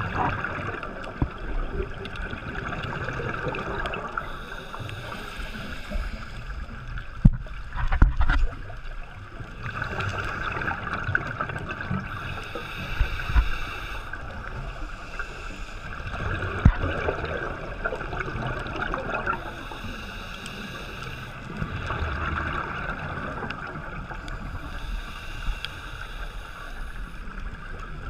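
Scuba regulator breathing heard underwater: a hissing inhalation and a bubbling exhalation repeating every few seconds, with a few sharp knocks.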